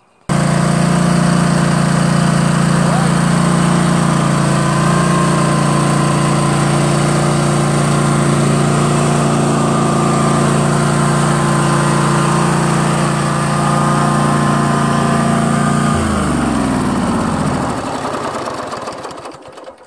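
Cub Cadet zero-turn mower's Kohler 22 hp engine running steadily and loudly, then shut off about sixteen seconds in, its pitch falling as it winds down to a stop.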